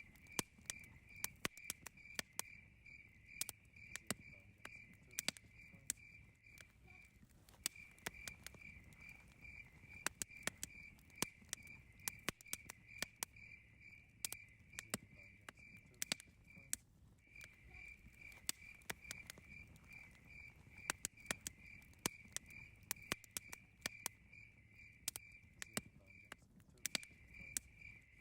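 Cricket chirping steadily, about three chirps a second, with a few short pauses, over a crackling campfire that gives off scattered sharp pops and snaps.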